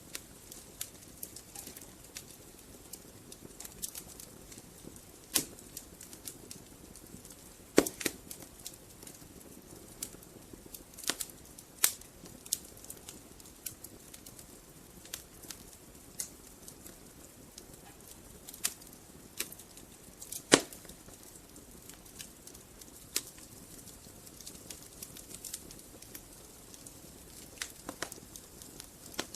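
Wood fire burning in a fireplace: a soft steady hiss with scattered crackles and sharp pops from the logs, a few of them much louder.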